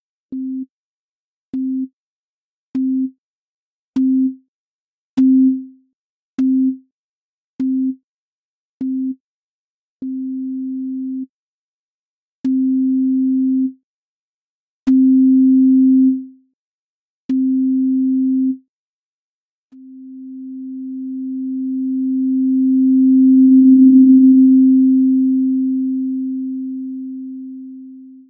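Synthesized sine-wave tones at one steady low pitch, each starting with a short click of noise on the attack: eight short beeps, then four longer tones, then one long tone. Within each group the loudness rises and then falls; the last tone swells up slowly and fades out.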